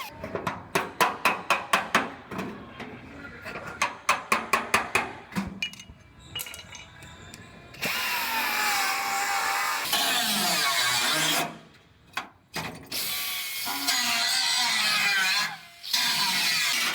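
A ratchet wrench clicking in two quick runs, about five clicks a second, followed by a power tool, likely a grinder, running in long loud bursts with a short gap between them, as the rust on a truck bedside is worked on.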